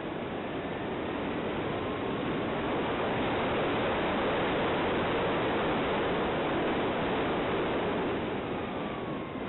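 Steady rush of airflow over the onboard camera microphone of an FPV Bixler foam model plane in flight, with a faint whine from its electric pusher motor that dips in pitch near the end.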